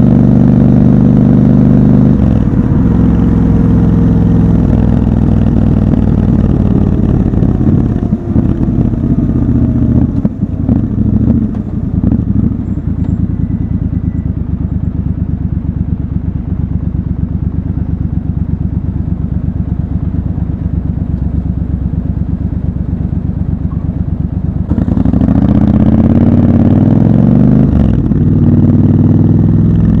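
Triumph Scrambler 1200 parallel-twin engine heard from the rider's seat. It runs steadily, drops in pitch as the bike slows, and idles at a standstill for about ten seconds. Near the end it revs up louder as the bike pulls away, shifting up once.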